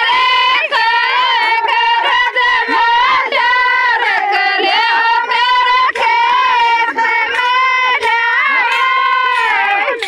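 Very high-pitched singing of a Rajasthani folk song: one voice carrying the melody in long, wavering phrases with short breaks between them, over a faint steady drone.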